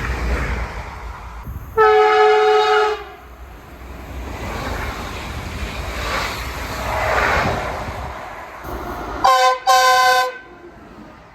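Train horn sounding one long blast about two seconds in, then two short blasts near the end, over the steady noise of a passing train.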